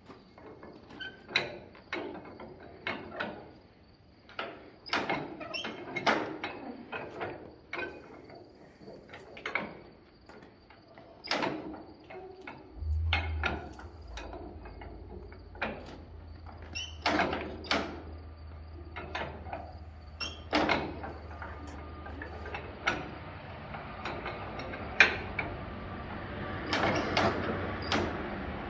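Repeated metal clinks and knocks of hand work on old machinery. A low steady hum joins about halfway through and stops near the end.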